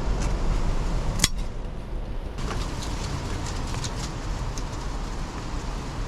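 Wind buffeting an outdoor camera microphone, a steady low rumble, with one sharp click about a second in.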